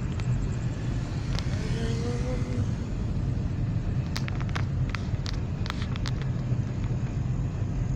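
Car driving along a street, heard from inside the cabin: a steady low road and engine rumble, with a quick run of sharp clicks about four to six seconds in.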